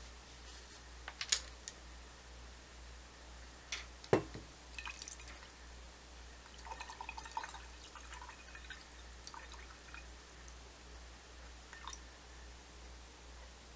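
Scattered light clicks and taps of small objects being handled on a desk, with a sharper knock about four seconds in and a short run of soft ticks around the middle.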